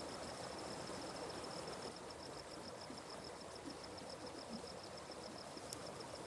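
Soft, steady rush of a forest stream, with an insect's thin, high chirp pulsing evenly about five times a second.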